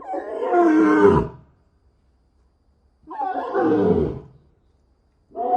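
An animal calling three times, each a loud call of about a second that falls in pitch, spaced roughly three seconds apart.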